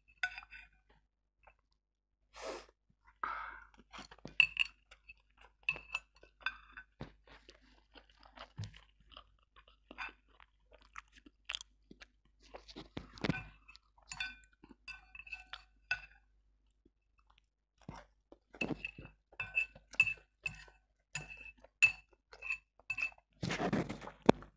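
Close-miked eating of black bean noodles: wet chewing and smacking with short clicks, ending in a longer noodle slurp near the end. Now and then chopsticks clink against the bowl.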